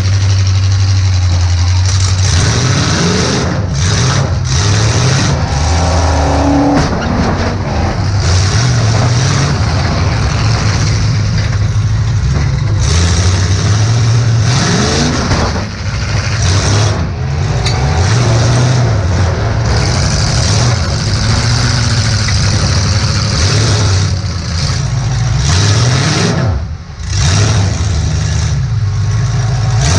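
Demolition derby car engine, heard from inside the car, revving up and down over and over as the car is driven hard, with a few brief dips, the deepest about three-quarters of the way through.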